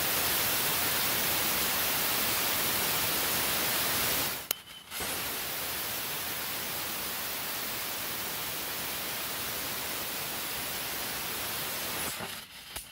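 Small homemade compressed-air and propane rocket engine firing through its bell nozzle: a loud, steady hiss of supersonic exhaust. It cuts off about four seconds in, and a second, quieter firing starts a second later and dies away near the end.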